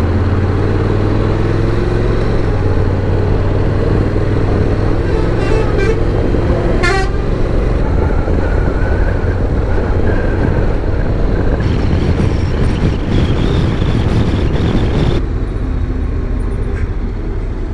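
Honda NC750's parallel-twin engine running under the rider at low town speed, with wind and road noise; its pitch climbs over the first several seconds as the bike speeds up. A short horn toot sounds about seven seconds in.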